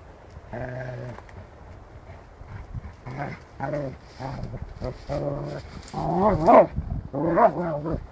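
A dog vocalizing in a series of short pitched whining and growling calls, about seven of them, getting louder toward the end, one wavering in pitch about six seconds in.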